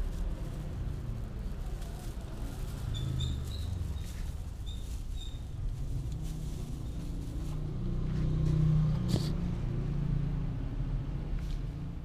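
Low rumble of a motor vehicle engine that swells to its loudest about eight to nine seconds in, with a sharp click just after the peak. A few short high chirps come around three to five seconds in.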